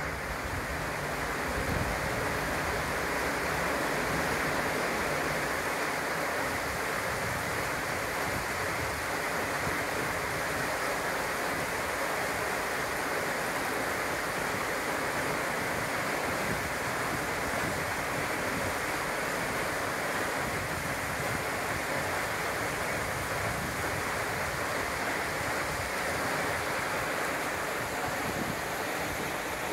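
Steady rush of river water spilling over a low stone weir and churning between boulders.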